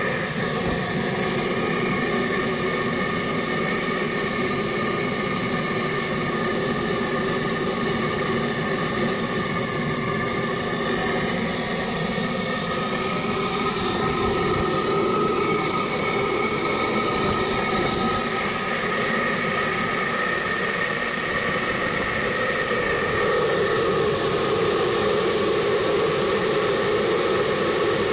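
Blowlamp burning with a steady rushing hiss and held whistling tones as it heats the glowing hot bulb of a Bolinder-Munktell BM20 hot-bulb engine before starting. The highest whistle drops out about 23 seconds in.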